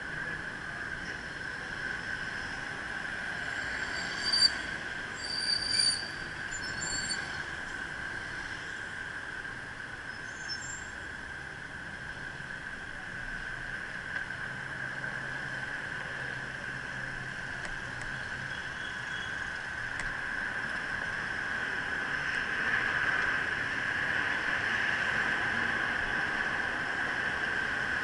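Busy city street traffic heard from a moving bicycle, with a steady high whine underneath. A few short high-pitched squeals come about four to seven seconds in, and the traffic noise grows a little louder near the end.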